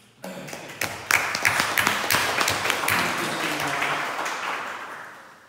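Audience applauding: a few scattered claps, then dense clapping from about a second in that fades out near the end.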